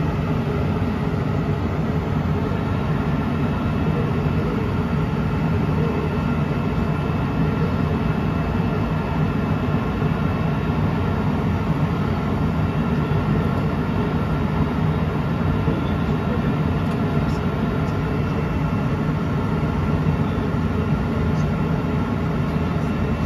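Cessna Citation XLS's twin Pratt & Whitney PW545B turbofans at idle, heard from inside the cabin: a steady low drone with faint whining tones above it.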